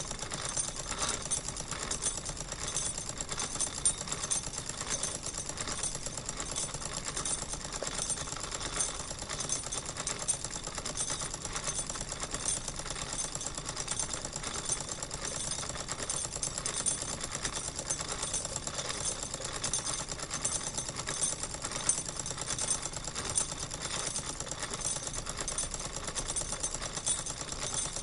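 Wilesco toy steam engine purring along steadily at speed, a fast, even mechanical clatter.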